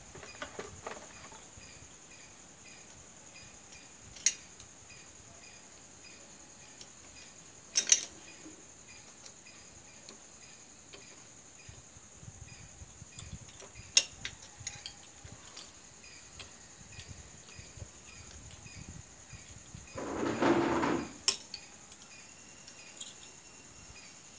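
Metal hand tools clinking against the clutch parts of a Honda CM125T motorcycle engine: a few sharp, separate clicks, and a louder scrape lasting about a second near the end.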